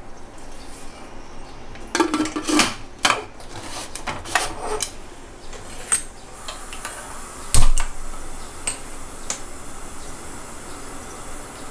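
Pressure cooker lid and metal pot clanking and clattering as the lid is set on and closed, with one loud heavy knock a little past halfway. A few lighter clicks follow it.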